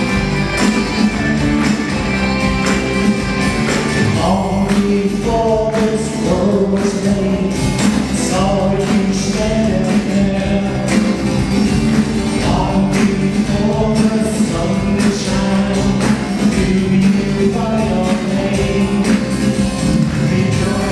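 Live band playing a song: a steady beat and low instrumental bed, with singing coming in about four seconds in.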